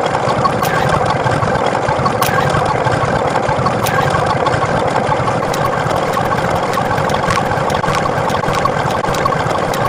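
A motor running steadily, with a few faint ticks.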